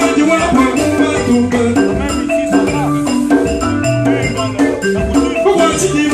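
Live Congolese band playing a Mutuashi rhythm: conga drums struck by hand under bright repeating melody lines and a bass line, with a shaker-like rattle in the percussion.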